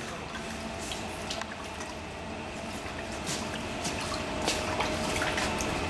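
Water dripping and trickling from holes in a pipe back into a tub, with a faint steady hum underneath and a few light clicks.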